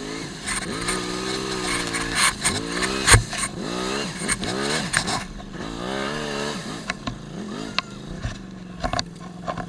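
Can-Am ATV engine revved in a string of short bursts, each rising and falling in pitch, as the tilted quad is stuck in mud and struggling to climb out. A sharp clunk comes about three seconds in.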